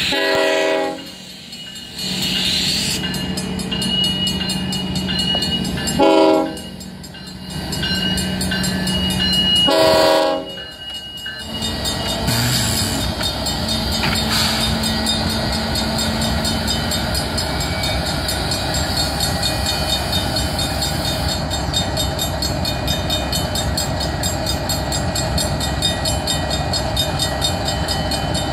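Diesel freight locomotive's air horn sounding in long blasts at a level crossing, the last blast ending about 11 seconds in, over a mechanical crossing bell ringing steadily. The locomotive then rolls past close by with its engine running and wheels on the rails.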